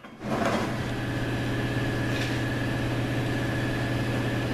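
A steady mechanical hum of a running machine, with a thin, steady high whine above it, starting about a quarter second in.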